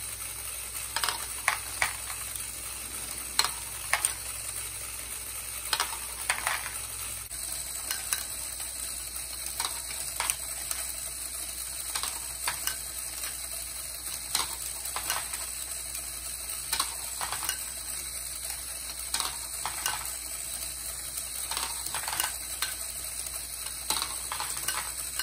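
Plastic LEGO balls clicking and clattering as they roll and drop through the Technic tracks, bins and lift of a running, motorized Great Ball Contraption module. The clacks come irregularly, some much louder than others, over a steady hiss.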